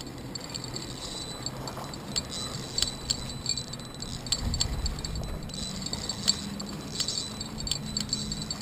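A spinning fishing reel being cranked by hand, its handle and gears clicking irregularly as line is wound in.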